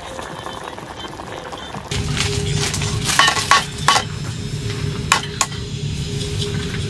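Clinks and knocks of dishes, pots and cutlery over a steady sizzling hiss, as of camp cooking, with background music. The sound changes abruptly about two seconds in, and the clinks cluster in the middle.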